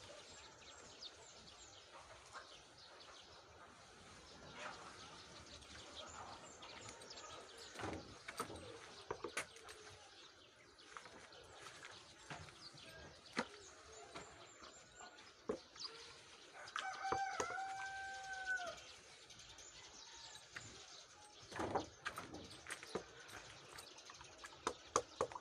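A rooster crowing once, about seventeen seconds in, a held call that drops at the end. Scattered light knocks and clicks come and go around it.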